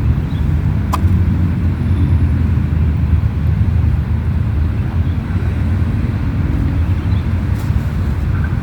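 Steady low outdoor rumble with no clear single source, with one brief faint chirp or click about a second in.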